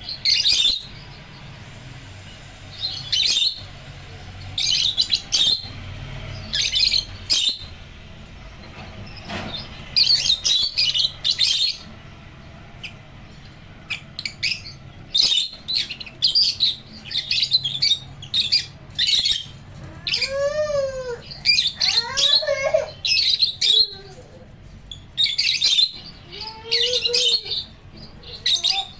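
Pet African lovebirds and a cockatiel chirping: short, shrill bursts of chirps every second or two, with a few lower, arching whistled calls about two-thirds of the way in and again near the end.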